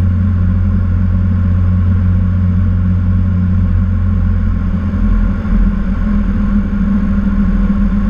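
A Cessna TTx's twin-turbocharged Continental TSIO-550 six-cylinder engine and propeller droning steadily in flight, heard inside the cockpit. The low tone shifts slightly about five seconds in.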